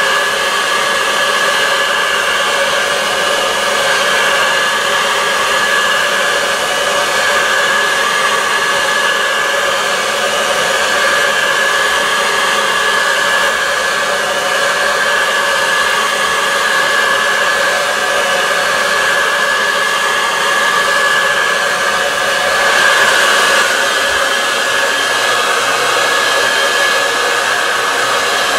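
Black & Decker heat gun running continuously, a steady rush of hot air with a steady whine from its fan motor, heating a Perspex sheet to soften it for bending. It swells briefly a little past three quarters of the way through.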